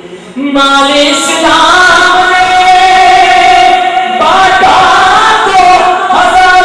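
A man's voice singing a manqabat through a PA system, in long drawn-out held notes that come in strongly about half a second in.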